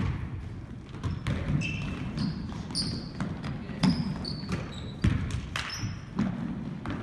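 Basketball bouncing on a hardwood gym floor at irregular intervals, mixed with short high-pitched squeaks of sneakers on the court as players cut and stop.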